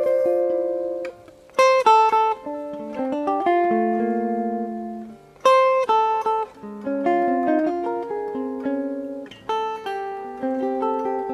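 Solo guitar playing a slow passage of close-voiced jazz cluster chords, each chord struck and left ringing, with single notes picked between them.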